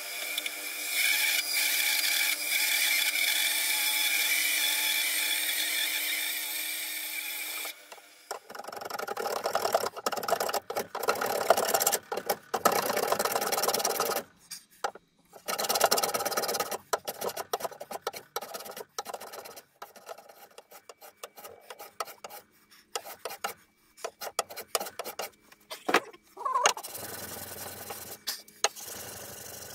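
A bench bandsaw's motor runs steadily for about eight seconds and then cuts off. After that a hand plane takes irregular shaving strokes across a wooden guitar neck blank clamped in a vise, cutting the headstock angle, with knocks between strokes.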